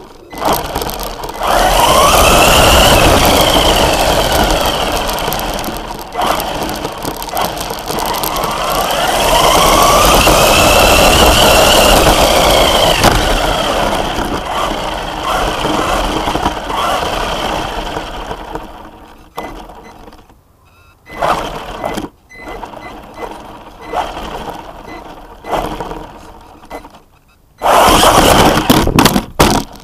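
ZLL SG116 1:16 4WD RC car's brushless motor and drivetrain whining over steady road noise from rough asphalt, heard from on board. The whine rises and falls in pitch twice as the car speeds up and slows. Past the middle it turns quieter, with short bursts of throttle, then is loud again near the end.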